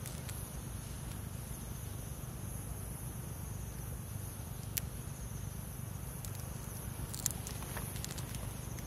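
Night insects trilling steadily in a high band over a low, even rumble, with a few sharp clicks about five and seven seconds in.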